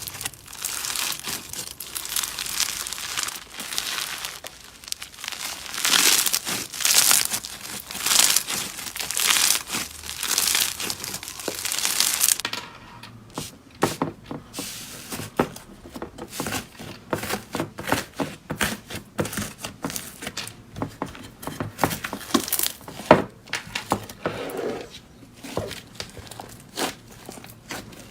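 Slime being squeezed and pressed by hand. There is dense crinkly crackling for about the first half, then sharper, scattered pops and clicks.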